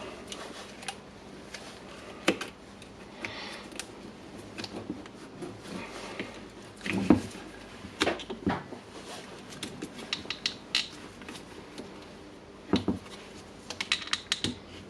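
Scattered small clicks and light knocks of hands working inside an opened Bosch hammer drill's plastic housing, disconnecting a wire from its switch, with a quick run of clicks near the end.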